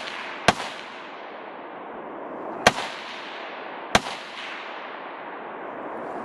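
Rifle shots: three sharp cracks, about half a second in, near the middle and about four seconds in, with a lingering wash of echo between them.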